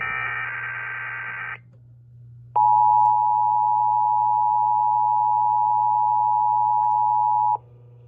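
Emergency Alert System test tones: the end of a warbling SAME data burst, a second's pause, then the steady two-tone attention signal (853 and 960 Hz) for about five seconds, cutting off sharply. A low mains hum runs underneath.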